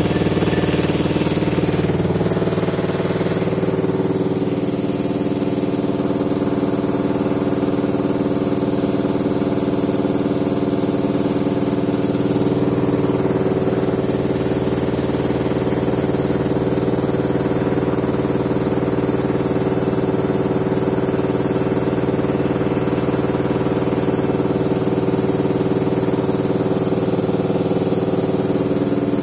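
Samsung WF604 front-loading washing machine in its final high-speed spin, at about 1,200 to 1,400 rpm. The motor and drum run with a steady whine, and the machine shakes hard with a fast low rattle.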